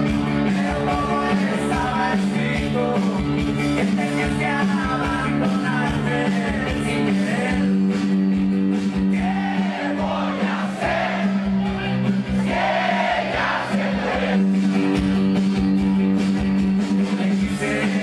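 Loud dance music with singing.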